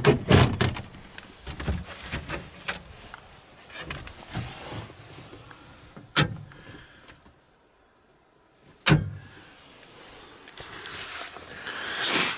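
Handling noise: scattered clicks and knocks, with two sharp knocks a few seconds apart midway and a swell of clothing rustle near the end.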